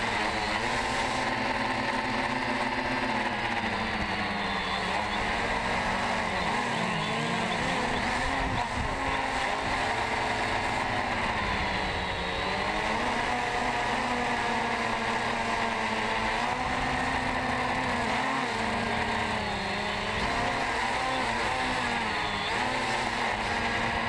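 DJI Phantom 2 quadcopter's four motors and 9-inch carbon-fibre propellers running in flight, heard from the camera on the drone itself. Its pitch rises and falls several times as the drone manoeuvres.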